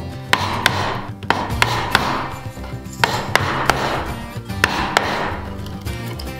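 Wooden mallet striking a wood chisel as it chops out a notch in a wooden frame piece: about ten sharp knocks in groups of two or three, over background music.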